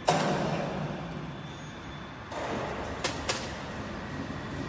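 Heavy feeder section of a thermal laminating machine being lowered into place: a sudden metal clunk with a rumble that fades, a second rumble a little past two seconds, and two sharp metal clicks about three seconds in.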